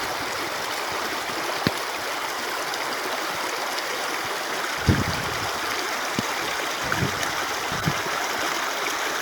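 Steady rush of flowing stream water, with a few soft low thumps scattered through.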